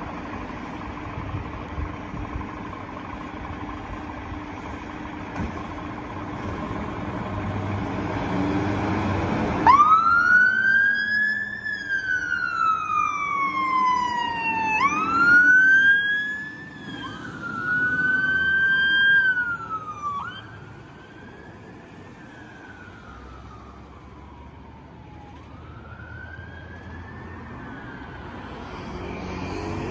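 Fire engine's diesel engine running and pulling away, then its siren starting about ten seconds in with a wail: slow sweeps that rise quickly and fall away over a few seconds. The siren grows fainter after about twenty seconds as the appliance drives off.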